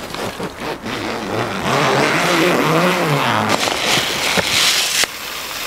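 Rustling handling noise, then a few sharp metal clicks near the end as a small latch bolt on a window frame is worked. A low voice hums and wavers briefly about two seconds in.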